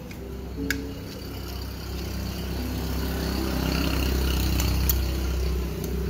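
An engine running, with a low steady rumble that grows louder to a peak about five seconds in and then eases off, like a vehicle going past. A couple of light clinks of a spoon against a plastic plate.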